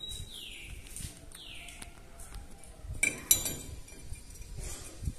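Metal folding-door hanger bracket clinking against a concrete lintel as it is held in place: a quick cluster of sharp clinks about three seconds in. Earlier a bird gives two falling whistles, one after the other.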